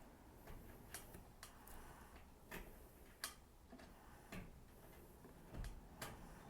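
Faint, scattered light clicks and ticks of a wing nut being handled and turned by hand onto a mounting screw.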